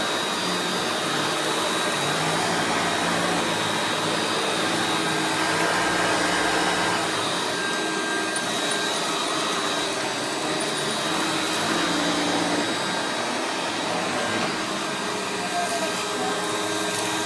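Hoover Turbopower 2 Autosense upright vacuum cleaner's 800 W motor running steadily with its brushroll spinning: a steady rush of air with a high whine over it. It runs quietly, on new agitator bearings and a slightly stretched worn belt.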